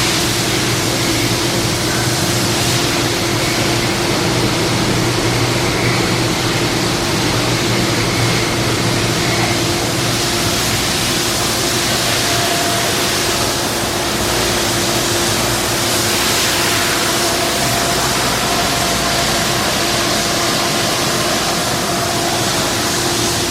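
DCM IG 482 SD rotary surface grinder running: a steady hiss with a constant hum underneath, unchanging throughout.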